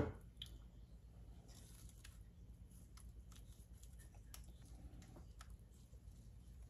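Faint scrapes and soft clicks of a utensil working thick cream filling out of a blender jar and dropping it over a layer of cookies, over a low steady room hum.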